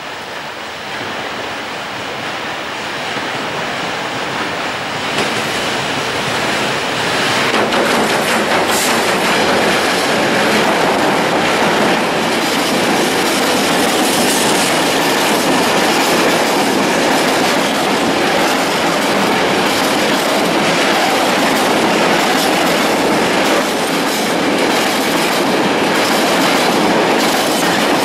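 Freight train of open coal wagons hauled by a Newag Dragon E6ACT electric locomotive approaching and passing close by. The noise builds over the first several seconds, then settles into the steady running noise of wagon wheels on the rails with clickety-clack over the joints.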